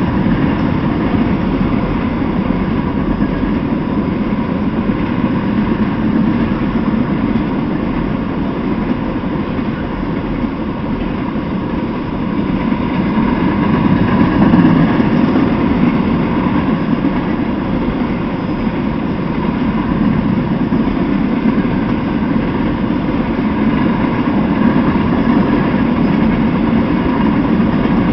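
Freight train of tank cars rolling past, a steady noise of steel wheels running on the rails that swells slightly about halfway through.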